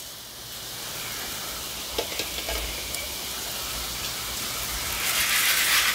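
A steady hiss with a couple of light knocks about two seconds in. Near the end comes a louder rushing rattle: freshly roasted coffee beans being poured from the roast chamber into a pan to cool.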